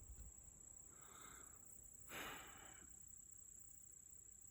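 Near silence, with a faint thin high whine throughout and one brief faint burst of noise about two seconds in.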